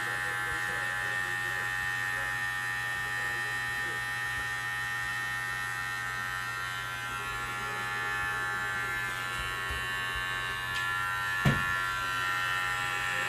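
Corded electric hair clippers buzzing steadily as they are run over a man's scalp, cutting his hair. A short thump near the end.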